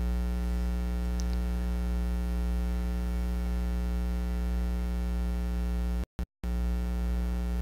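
Steady electrical mains hum, one low drone with a stack of even overtones, cutting out completely for a moment about six seconds in.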